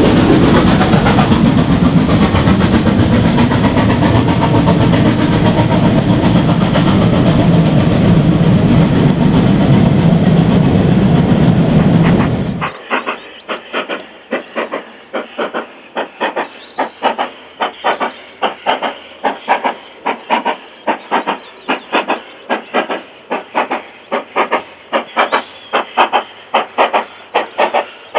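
Preserved steam locomotive working hard on a steep climb: first a loud, dense roar of exhaust and running gear close by, then a sudden change about two-thirds of the way through to separate, evenly spaced exhaust beats at about three a second, with a hiss of steam.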